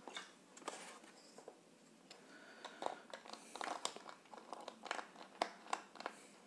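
Glass of pomegranate juice being handled close to the microphone: a run of small sharp clicks and crinkly crackles, sparse at first and coming thicker from about three seconds in.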